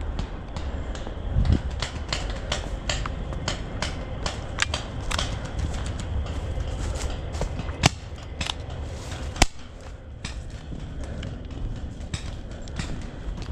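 Paintball markers firing across the field: scattered sharp pops and cracks, with two louder, sharper shots about eight and nine and a half seconds in, over a steady low rumble.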